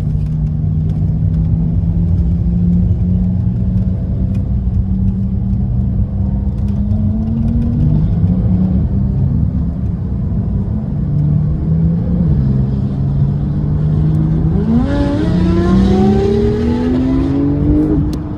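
Porsche 911 flat-six engine running at a steady low pitch, then revving up with a rising pitch for about three seconds near the end before dropping back.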